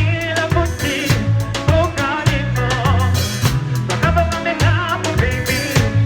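Live band playing a Zambian pop song: drum kit strokes with rimshots over a steady bass line, and a wavering lead melody on top.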